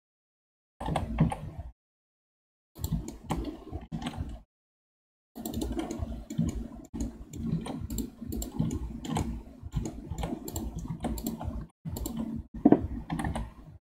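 Computer mouse buttons and keyboard keys clicking in quick irregular runs over a low hum. The sound cuts in and out abruptly three times, with dead silence between.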